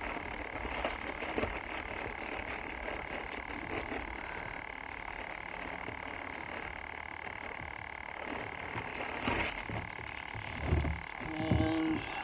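Small backpacking stove burner running steadily under a steel mug of water, with a constant hiss and faint whistle. Near the end come handling and rustling noises as a drink packet is opened.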